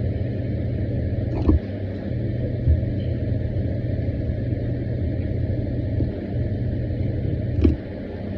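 Steady low engine-like rumble, as of a car idling, with a few short sharp clicks: one about a second and a half in, one near three seconds, and one near the end.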